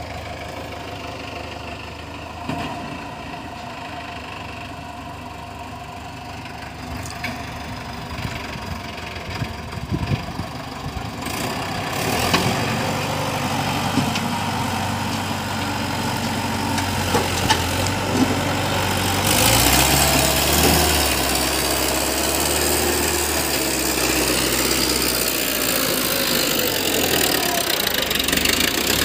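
Sonalika tractor's diesel engine running under load as it tows a brick-laden trailer up a dirt ramp, growing louder as it draws close, with a wavering engine note near the end.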